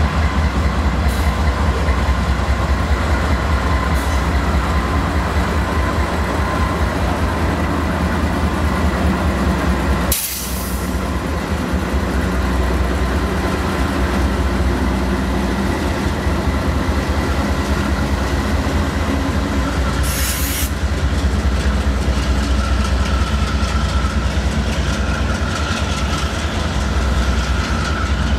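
CSX freight train passing close by: the wide-cab diesel locomotives' engines drone low and steady, and the wheels rumble and clack on the rails as the cars follow. Two brief, loud bursts of noise cut through, about ten and twenty seconds in.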